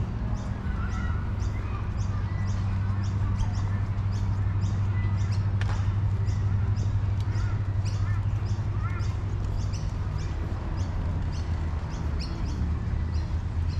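Birds chirping and calling here and there over a steady low hum, with a light ticking about twice a second.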